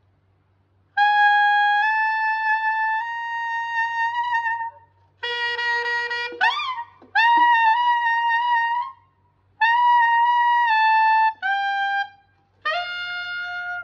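Tenor saxophone played in the altissimo register: several short phrases of held high notes, some stepping up by small steps, with one lower note that scoops quickly upward about six and a half seconds in.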